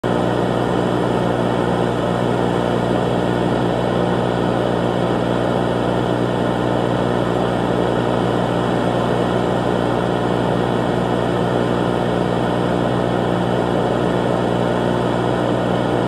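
Mock emergency alert system alarm: a loud, steady drone of many held low tones under a dense noisy buzz that does not change.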